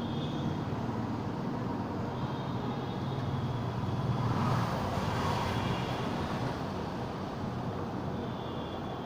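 Steady road traffic noise, swelling as a vehicle passes about four to five seconds in.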